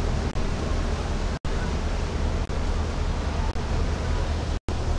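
Steady outdoor rushing noise with a strong low hum underneath, cut off completely for an instant twice, where the raw footage breaks between shots.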